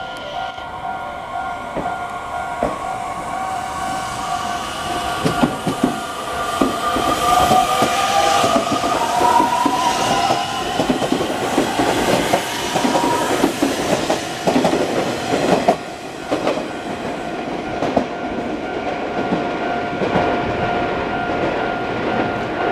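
Nishitetsu 3000 series five-car electric train pulling away and accelerating past: an electric motor whine rising in pitch and wheel clatter over rail joints that quickens. It is loudest as the cars pass, then drops away about two-thirds of the way through, leaving a steady ringing tone that runs throughout.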